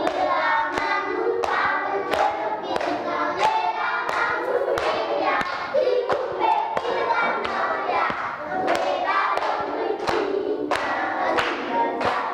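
A class of young children singing a song together in chorus, clapping their hands on a steady beat.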